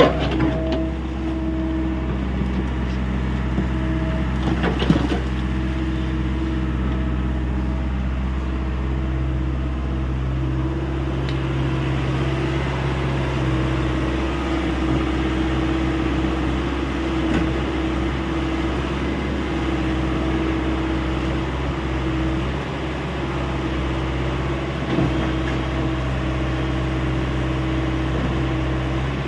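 Hyundai 85A SMART excavator's diesel engine running steadily with a steady whine over it. There are scattered knocks of the machine working, the sharpest about five seconds in.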